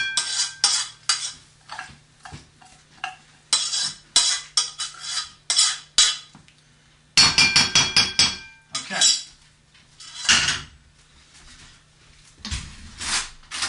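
Stainless steel saucepan clanking and scraping as cooked rice pilaf is knocked out of it into a bowl: bursts of clatter and taps, some with a brief metallic ring, thinning out after about ten seconds.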